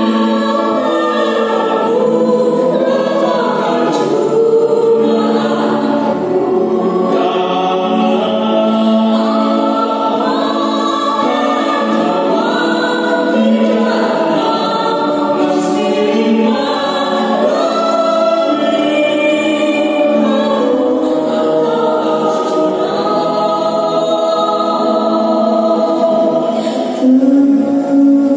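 A group of women singing a slow melody together, amplified through microphones, over a held accompanying tone.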